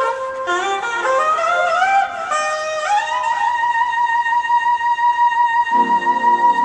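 Saxophone playing a slow melody that steps upward, then holds one long high note from about three seconds in; a lower accompaniment with a pulsing rhythm comes in near the end.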